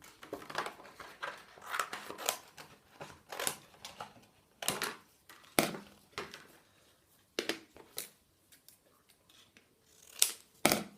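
Scissors cutting through thin card: a string of irregular snips and paper rustles, the loudest snips near the end.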